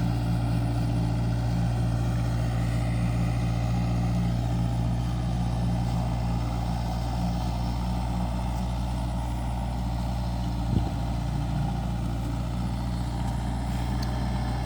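Kobelco SK50 mini excavator's diesel engine running at a steady speed, with one brief knock about eleven seconds in.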